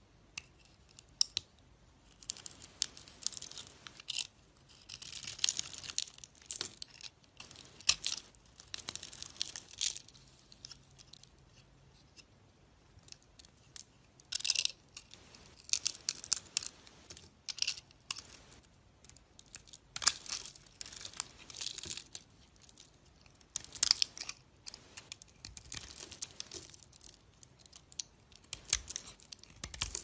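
Snap-off utility knife blade carving a bar of dry soap with a glittery coating: a series of crisp, crunchy scrapes and cuts at an uneven pace, some short and some drawn out over about a second, starting about two seconds in.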